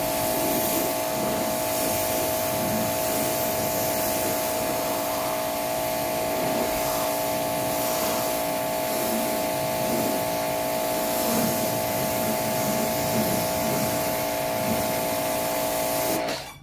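Pressure washer running with a steady high hum while its jet sprays water, rinsing soap foam off a car's body. The sound cuts off suddenly near the end.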